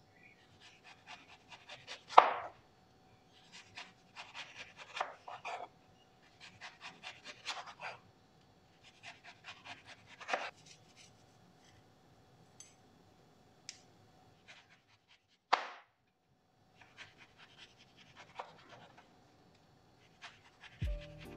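Kitchen knife slicing and peeling a lemon and an orange on a plastic cutting board: scattered short cutting strokes through rind and flesh, with sharper knocks of the blade on the board about two seconds in and again about fifteen seconds in.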